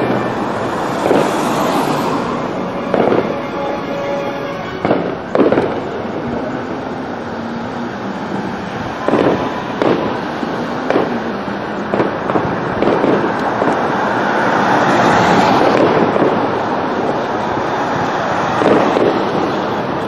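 Fireworks display: aerial shells bursting with sharp bangs at irregular intervals, about a dozen in all. Under them runs a continuous hiss and crackle that swells around three-quarters of the way through.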